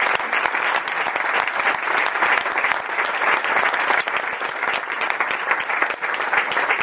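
An audience applauding, many people clapping steadily together after a talk.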